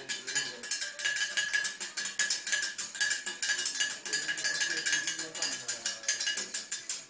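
Homemade wind-driven bird-scaring pinwheel clattering as it spins: a rapid, uneven run of metallic clacks with a steady ringing note.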